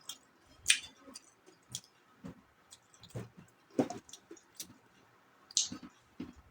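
Close-up eating sounds of a person chewing kinilaw, vinegar-cured raw sardines: irregular wet mouth clicks and lip smacks, one or two a second.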